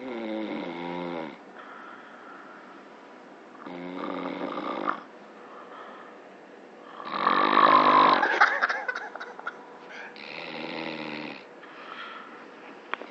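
Snoring: four snores about three seconds apart. The third, about seven seconds in, is the longest and loudest and ends in a rattling flutter.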